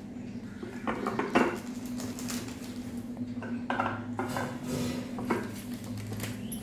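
Knocks and clinks of a Prestige Swachh gas stove's pan supports and burner parts being handled in their box, with plastic wrapping rustling. The loudest knock comes about a second and a half in, with more around four and five seconds in.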